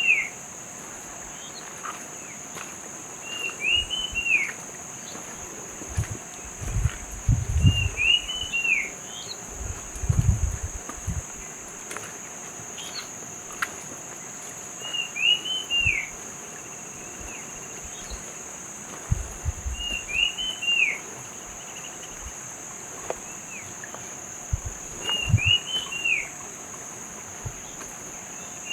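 A bird repeating a short phrase of two or three quick up-and-down whistled notes about every five seconds, over a steady high-pitched insect drone and the even rush of a hill stream. Low rumbles come and go a few times.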